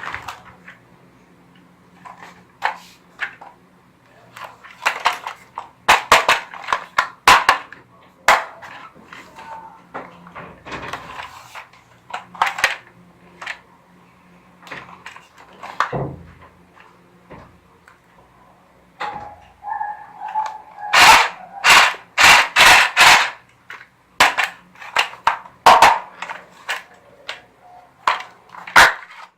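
Toy guns snapping and firing: scattered sharp clicks and pops, with the loudest part a quick run of about seven shots about two-thirds of the way through, roughly three a second.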